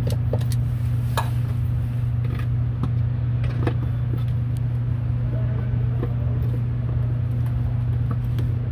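A steady low machine hum runs throughout. Over it come scattered light metallic clicks and taps from pliers and hand tools working a drilled-out seat-mount bolt in a car's rusty floor pan.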